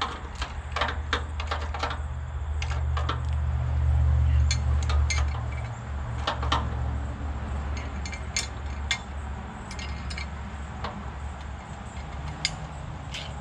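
Metal parts clanking and clinking in irregular knocks, over a steady low rumble that swells about four seconds in and then eases.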